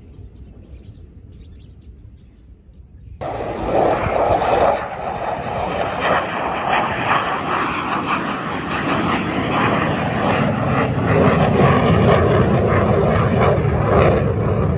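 Airplane flying over, its engine noise coming in suddenly about three seconds in and staying loud.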